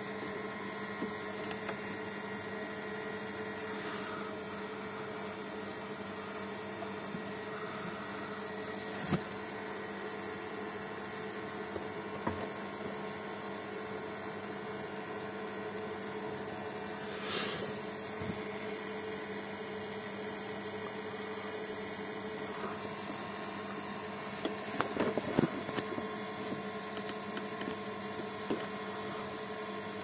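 Electric A/C vacuum pump running with a steady hum. It is pulling vacuum on a car's air-conditioning system, slowly drawing UV leak-detection dye in through the low-side port. A few light clicks and knocks, with a cluster of them near the end.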